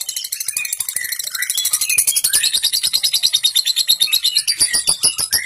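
Fischer's lovebird giving a long, rapid, chattering trill ('ngekek panjang'), about ten high notes a second without a break, with some lower squeaky notes mixed in around the middle.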